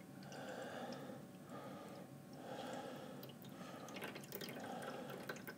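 Thin stream of water poured from a plastic bottle into the shallow plastic water channel of an egg incubator, trickling faintly and unevenly as it fills the reservoir to raise humidity.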